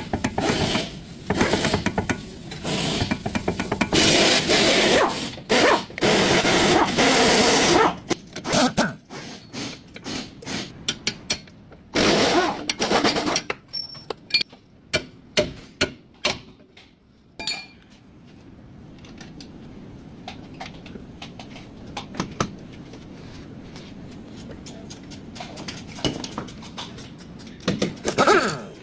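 Tool work on a car's front suspension: several seconds of loud, rough, power-tool-like noise, then a run of sharp metallic clicks and knocks, then a quieter steady hum with a few more clicks near the end.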